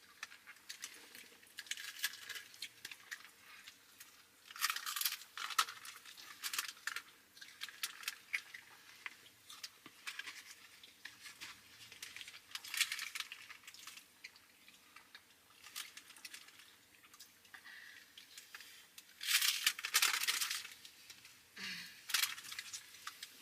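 Irregular bursts of crinkling and crunching from eating fast food in a car: paper wrappers rustling and taquitos being chewed. The loudest stretch of rustling comes about three quarters of the way through.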